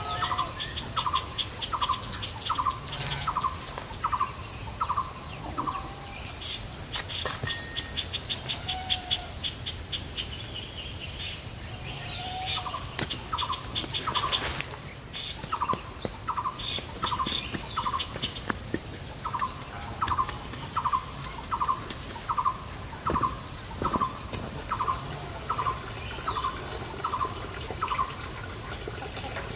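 Birds and insects: a bird repeats a short call about twice a second, breaking off for several seconds in the middle, over a steady high insect drone, with a couple of bursts of fast twittering.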